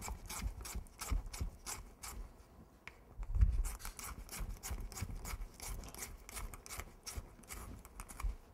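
A knife scraping a skewer to sharpen its point, in quick repeated short strokes. A dull thump about three and a half seconds in.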